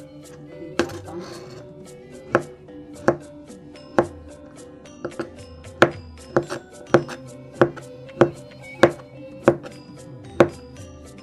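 Kitchen knife chopping a block of tempeh into cubes on a plastic cutting board: sharp knocks of the blade on the board, spaced unevenly at first, then falling into a steady pace of about three every two seconds.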